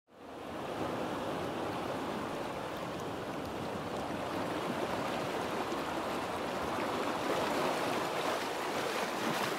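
Steady rushing water, fading in quickly at the start and then running on evenly.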